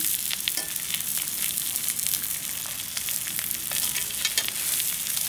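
Top round steaks searing in hot melted beef tallow in a pan, a steady sizzle with frequent crackles and pops of spitting fat, as they are turned over with tongs.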